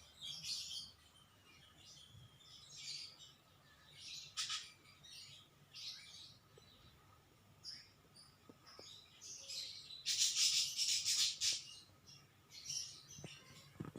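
Birds chirping on and off in short high calls, with a denser run of chirping about ten seconds in.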